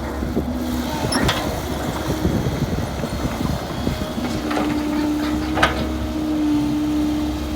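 Kobelco crawler excavator's diesel engine running steadily, with irregular clunks and knocks through the first half and one sharp knock later on as it works the soil.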